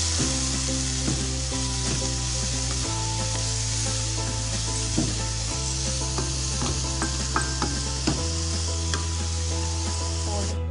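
Tomato and spice masala sizzling in mustard oil in a non-stick kadhai as it is stirred with a ladle, with occasional light scrapes of the ladle against the pan. A soft background music track with low held chords plays underneath.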